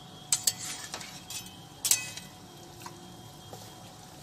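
A few sharp clinks of a spatula against a steel kadhai, over the faint sound of kachoris frying in oil.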